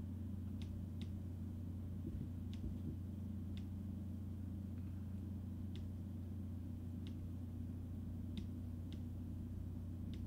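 A steady low hum with about a dozen short clicks at uneven intervals, from a computer mouse as layers are selected in a drawing program.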